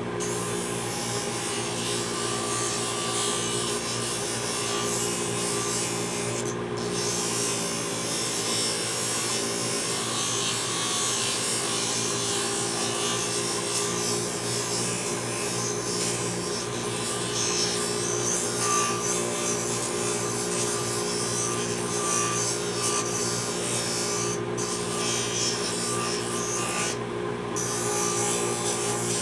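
Drum sander running, with the wooden knife handle held against the sanding drum: a continuous rasping grind over the steady motor hum. The grinding drops out briefly a few times as the handle is lifted off, while the motor keeps running.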